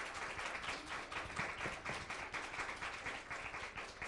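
Small seated audience applauding, a steady dense patter of many hands clapping.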